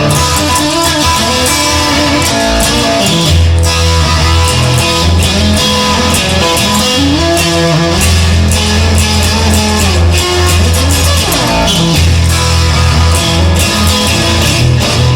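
Instrumental rock music led by guitar, with a steady bass line and drums.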